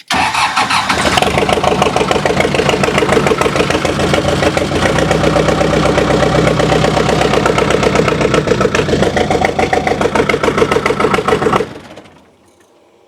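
Tractor engine running with a steady pulsing beat for about twelve seconds. Its note deepens slightly about five seconds in, and it stops abruptly near the end.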